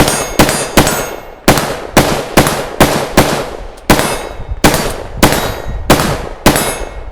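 A firearm fired in a steady string of about thirteen shots, roughly two a second, each a sharp crack with a short ringing tail, stopping just before the end.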